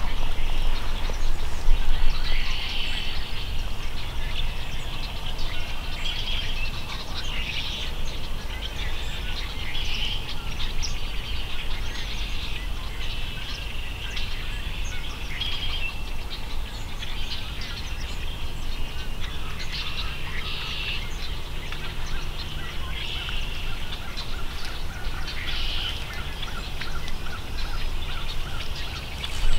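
Small birds chirping and calling, short calls repeating every second or two, over a low steady rumble.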